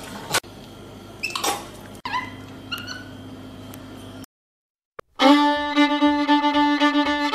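Quiet room sound with a few sharp clicks and several short falling chirps over a low hum, then about a second of silence. Then louder fiddle-led music starts.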